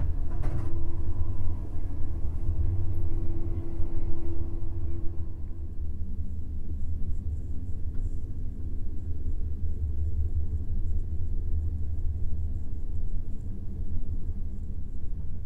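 Steady low rumble of a passenger train carriage running on the rails, heard inside a sleeper compartment. A humming tone over the rumble fades out about five seconds in, leaving the low rumble.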